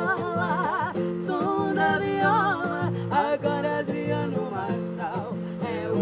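A man and a woman singing a sertanejo caipira song together, their voices held with a wavering vibrato, over acoustic guitar accompaniment.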